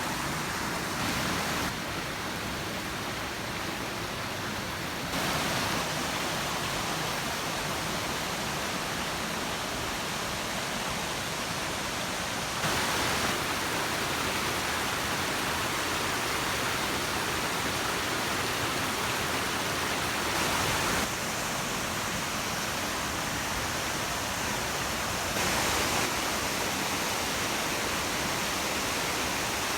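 Waterfall rushing: a steady wash of falling water, its loudness stepping up or down slightly a few times as the recording jumps.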